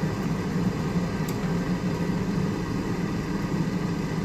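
Steady low mechanical hum from a running machine, cutting off abruptly near the end.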